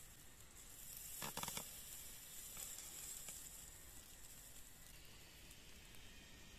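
Faint sizzling and hissing from a whole chicken roasting on a wooden spit over hot wood embers, with a brief crackling burst about a second and a half in.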